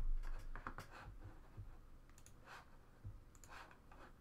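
Scattered light clicks and taps, thickest in the first second, from handling a small stack of trading cards and working a computer mouse. There is a soft low thump about three seconds in.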